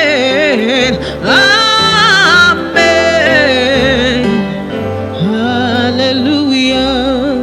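Gospel worship music: a solo voice singing long, wavering melismatic runs without clear words over sustained accompaniment chords.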